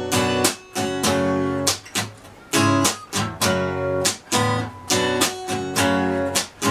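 Acoustic guitar strumming chords in a steady repeating pattern of down and up strokes, some strokes muted with a choked, percussive hit.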